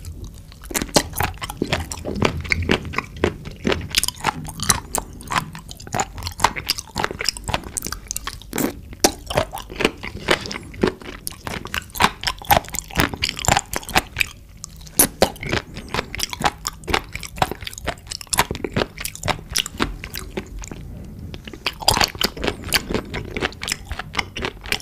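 Close-miked chewing of raw penis fish (fat innkeeper worm): wet, crunchy bites and chews in a dense run, with a couple of brief pauses.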